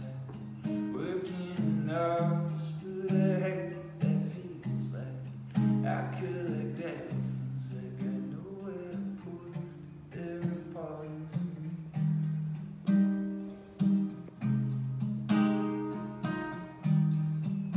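A man singing with his own acoustic guitar, live. From about two-thirds of the way in the singing stops and the guitar carries on alone, with sharp repeated plucked notes.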